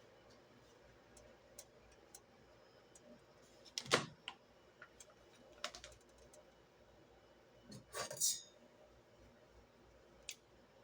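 Faint room tone with scattered sharp clicks and taps, the loudest about four seconds and eight seconds in.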